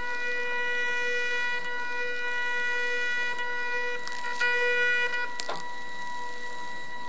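Zebra ZM400 thermal label printer printing its sensor profile during calibration: the stepper motor driving the media gives a steady high whine with overtones. A few sharp clicks come about four and five and a half seconds in, and it is briefly louder between them.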